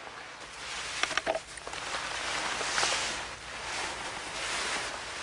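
Wind blowing in a steady rush that swells and eases, with a few faint clicks about a second in.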